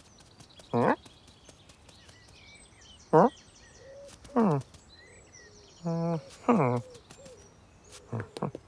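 Cartoon cat meows voiced by a person: about six short calls, most sliding down in pitch, one held at a steady low pitch, over faint background birdsong.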